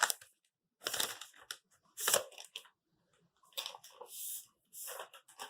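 Packaging of a new power supply unit being handled and torn open: a series of short crinkling, tearing bursts about a second apart.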